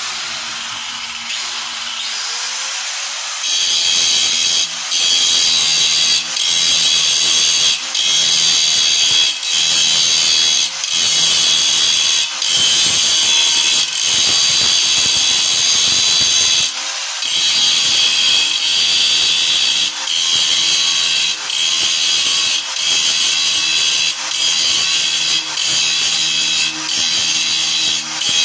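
A handheld electric power tool grinding against a flat sign panel. The noise is high and harsh and grows heavier about three seconds in, then dips briefly about every second and a half.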